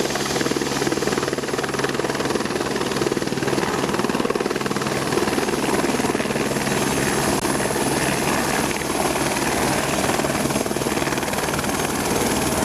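Helicopter running steadily, its rotor blades giving a fast, even beat under a constant high whine.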